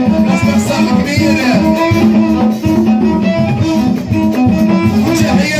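Live Moroccan band music in the gnawi and chaabi style: electric keyboard melody over steady percussion, with men singing.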